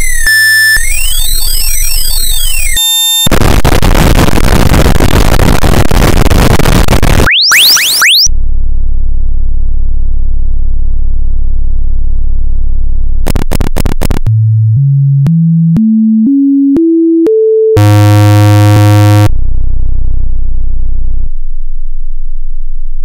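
A sequence of synthesized electronic sounds: crisscrossing sweeping sine tones, then a loud burst of hissing noise for about four seconds, quick rising whistles, and a steady low buzz. After a run of clicks, a stepped scale of tones climbs note by note, followed by a loud buzzing chord and lower buzzes, fading to a faint low hum near the end.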